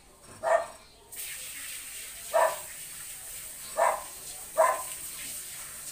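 A hose spray nozzle turns on about a second in and hisses steadily as water is sprayed over a dog during its bath. Over the spray a dog barks four times in short single barks.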